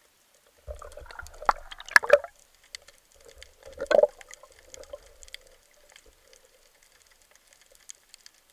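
Water sloshing and bubbling heard through an underwater camera housing, with a few sharp knocks about two and four seconds in.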